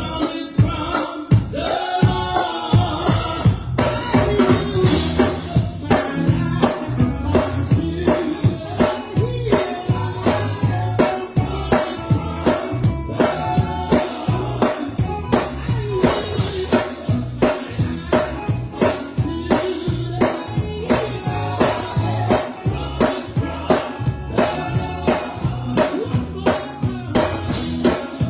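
Live gospel band music: a drum kit keeps a steady beat of about two hits a second over bass, with a singer's voice on top.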